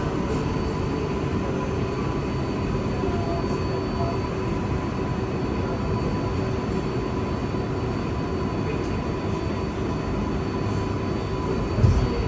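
Inside a New York City Subway 7 train car in motion: the steady rumble of wheels on track, with a faint constant whine over it. A short low thump comes near the end.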